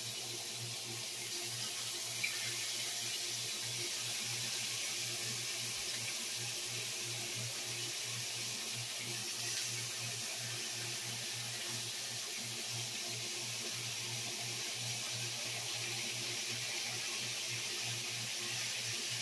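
Seasoned beef neck bones sizzling steadily as they sear in a hot frying pan, with a low steady hum underneath.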